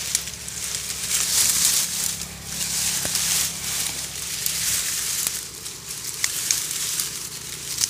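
Dry reed stems and leaves rustling and crackling as hands push through them, in irregular surges with a few sharp clicks.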